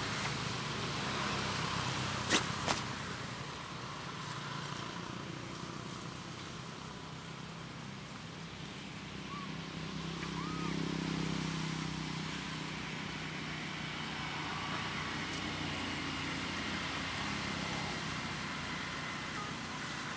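Steady outdoor background noise with a low engine-like hum, like distant traffic, that swells about halfway through. Two sharp clicks come a couple of seconds in, and two faint short chirps near the middle.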